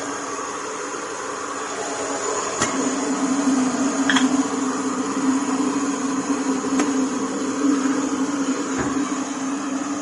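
Electric kettle heating water: a steady rushing noise with a low hum that sets in about two and a half seconds in, and a few light clicks.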